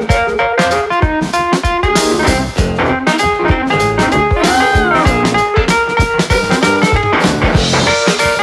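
A live band playing a groove: drum kit, electric guitar and keyboards, with a note that bends up and back down about halfway through.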